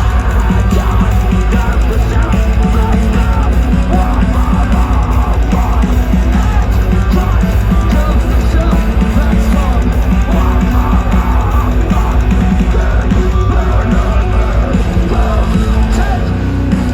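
Metalcore band playing live at full volume, recorded from the crowd: heavy distorted guitars, pounding drums and bass, with vocals over the top.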